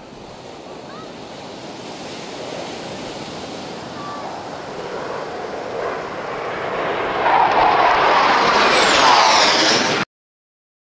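F-16 fighter jets passing overhead: a steady rushing jet noise that grows louder as they approach, loudest from about seven seconds in with a sweeping, phasing hiss, then cut off abruptly near the end.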